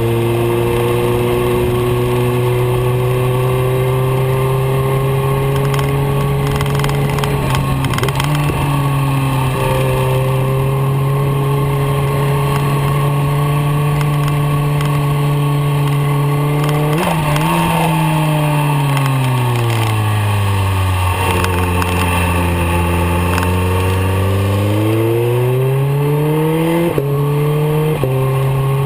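BMW K1300R's inline-four engine, heard from an onboard camera, holds a steady note for the first half. It then falls in pitch as the bike slows for a bend and climbs again as it accelerates out, with a couple of quick jumps in pitch near the end.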